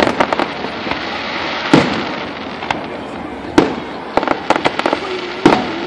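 Aerial fireworks shells bursting with sharp booms about every two seconds, four in all. Between them comes a rapid crackle of many small pops from crackling stars.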